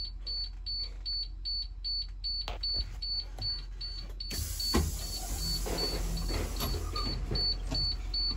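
School bus dashboard warning beeper sounding with the ignition on and the engine not running: rapid, evenly spaced high beeps, about two to three a second, over a low hum. About four seconds in, a hiss and a few knocks and a thump join it.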